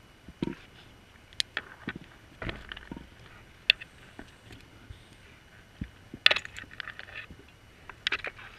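Underwater, irregular sharp clicks, taps and short scraping bursts from a diver's scuba gear knocking and rubbing against the camera housing, over a faint low hum.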